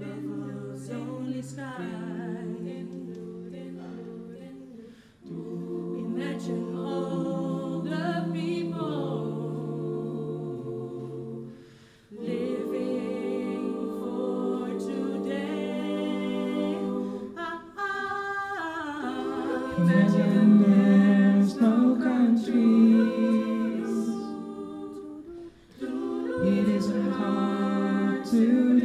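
Mixed-voice a cappella choir singing sustained chords in close harmony, in phrases of a few seconds with brief breaks between them, growing louder about two-thirds of the way through.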